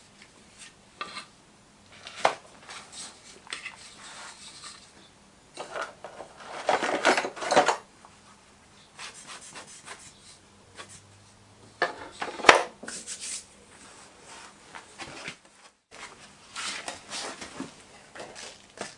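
Irregular rubbing, clicks and light knocks of plastic 3D-printed pattern pieces being handled, dusted with parting powder and set into a wooden moulding flask, with a louder knock about twelve seconds in. Near the end, a scoop of greensand is tipped over the pattern with a short rustle.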